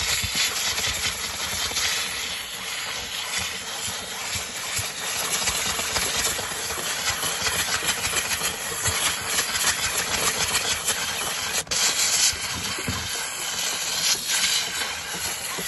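Domestic steam cleaner's narrow nozzle jetting steam onto soapy caravan canvas: a steady hiss with one momentary break about two-thirds of the way through.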